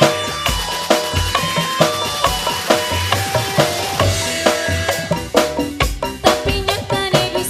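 Instrumental singa depok band music: a busy, steady drum beat under sustained melody lines, with no singing.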